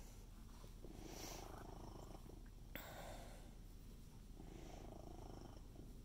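A domestic cat purring faintly and steadily, swelling about every two seconds, with one small sharp click a little under three seconds in.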